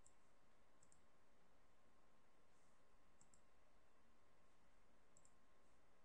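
Faint computer mouse clicks, most in quick close pairs, four times over a low steady hiss.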